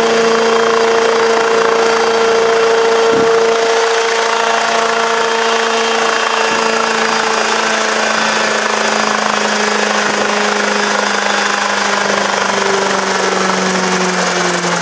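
Helitrike microlight helicopter's engine and contra-rotating rotors running loud and steady. From about halfway through the pitch slowly falls as the machine slows.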